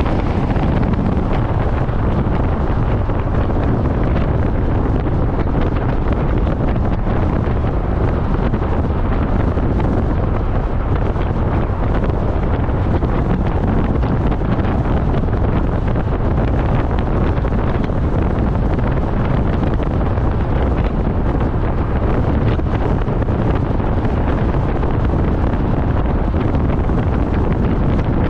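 Wind rushing and rumbling on the microphone of a camera mounted outside a moving campervan, a steady noise with no breaks.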